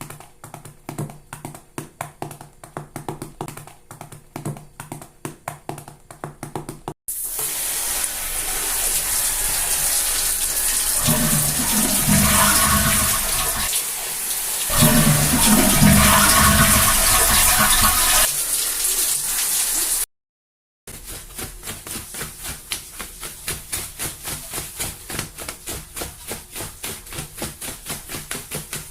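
Loud rushing water, like a toilet flushing, runs for about thirteen seconds with a low rumble that swells twice, then cuts off abruptly. Before and after it there is a fast run of light clicks or taps.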